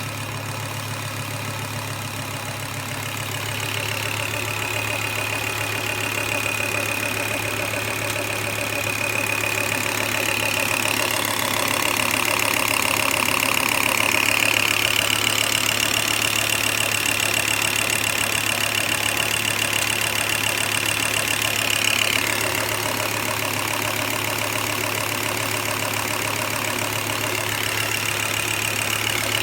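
Volvo S70 T5's turbocharged inline-five idling warm, with the usual lifter ticking and a weird rubbing sound in the background that seems to come from the block. A high thin whine fades in and out over the idle, strongest in the middle stretch.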